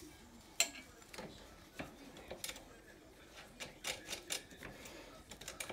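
Irregular light metallic clicks and taps as a washer and nut are fitted by gloved hands onto the ball-joint stud of an ATV's front steering knuckle, with the sharpest click about half a second in.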